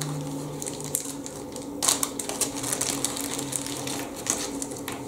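Small zip-lock plastic bag of 3D-printed model kit parts crinkling and crackling in the hands as it is opened, with the loudest crackles about two seconds in.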